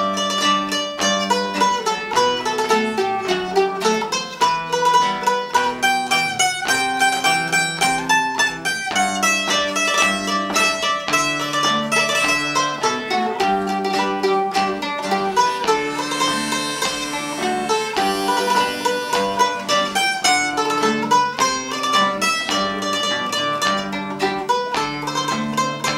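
Traditional Portuguese folk tune played live on plucked strings: a mandolin-type instrument picking the melody over a strummed small guitar, with a harmonica on a neck holder adding held chords.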